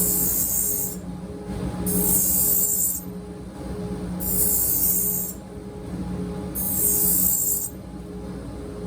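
Four long hissing scrapes of a knife blade, each about a second long and evenly spaced about two seconds apart, over background music.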